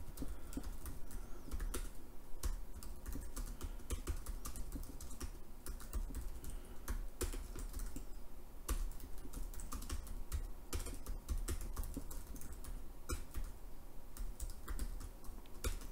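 Typing on a computer keyboard: a continuous, irregular run of keystroke clicks.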